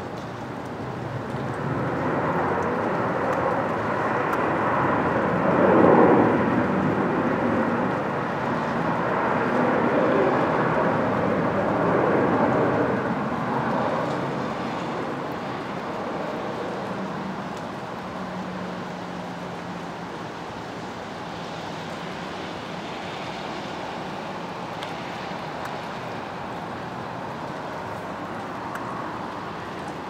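Engine noise of something passing by, a rushing rumble that swells to its loudest about six seconds in and fades by about fourteen seconds into a steady background.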